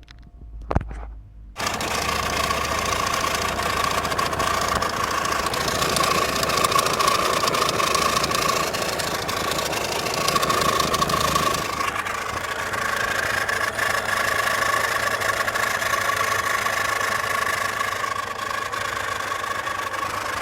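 A single thump near the start, then the Audi A6 C5's 2.4 V6 petrol engine (ALF) running close up with a knock that the owner traces to the timing belt covers. The engine runs rough with heavy vibration.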